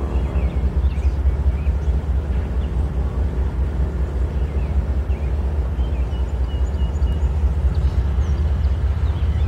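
Norfolk Southern diesel locomotive engine running steadily with a deep, even rumble.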